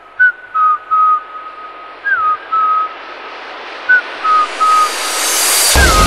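Electronic dance track build-up: a whistled lead melody of short notes, some sliding down in pitch, over a rising noise sweep that swells louder. Near the end the drop lands with a heavy bass kick.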